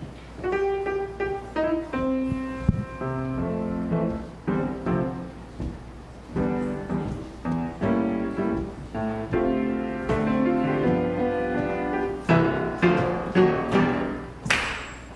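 Instrumental church music: a piano or keyboard plays chords over a bass line, with no singing, and sharper rhythmic strikes join in over the last few seconds.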